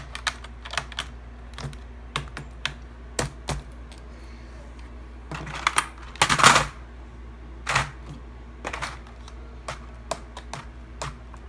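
Computer keyboard typing: irregular keystroke clicks, with a louder, denser flurry of clatter about six seconds in.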